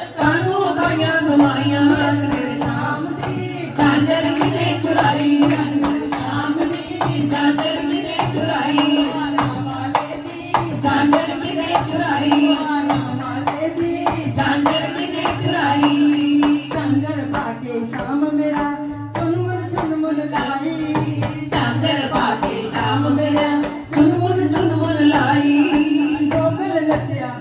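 Women singing a Punjabi devotional bhajan into microphones, a lead voice with others joining in, over a steady hand-percussion rhythm.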